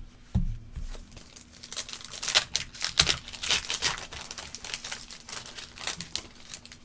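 Trading card pack wrapper crinkling and tearing as the pack is opened, with the cards handled. It is a quick run of crackles, loudest about two to three seconds in, and it thins out near the end.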